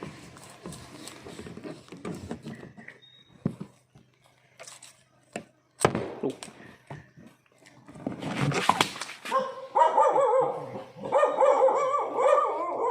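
A dog whining in a long wavering cry through the last few seconds, after a louder burst of noise about eight seconds in. Scattered knocks and scraping sounds come before it.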